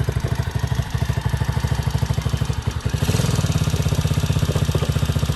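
Small 110cc single-cylinder ATV engine idling with an even, rapid firing beat, getting louder about three seconds in. It is running again on a newly fitted carburetor after not running before.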